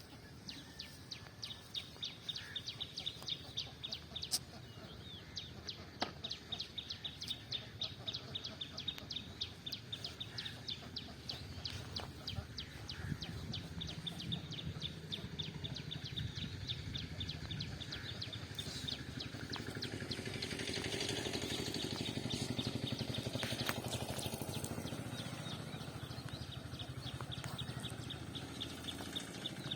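Outdoor ambience of rapid, evenly repeated high chirps, several a second, fading out about halfway and returning near the end, with a low rumbling noise building from about midway.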